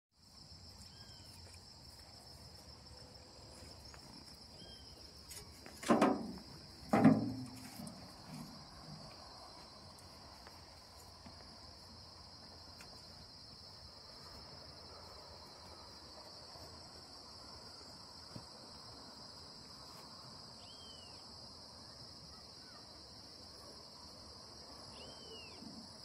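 Steady high-pitched insect chorus, like crickets, running throughout, with a few short bird chirps. Two loud thumps stand out about six and seven seconds in.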